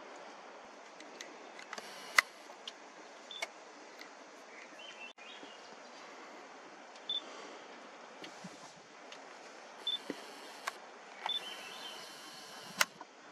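Camera's zoom motor whirring in short spells, with sharp handling clicks on the camera body, the loudest about two seconds in and near the end, over a steady hiss. A few short, high chirps come and go.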